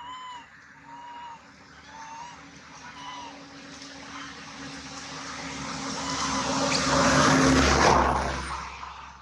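A motor vehicle passing close by: its noise builds over several seconds, peaks near the end and then fades quickly. In the first three seconds a baby monkey's short, rising-and-falling crying calls repeat about once a second before the vehicle covers them.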